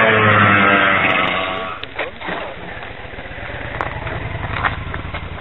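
A 100cc two-stroke racing kart engine running hard as the kart drives past, its pitch dropping slightly as it fades out over the first two seconds. It is followed by a low, pulsing engine rumble close by, with a few sharp clicks and knocks.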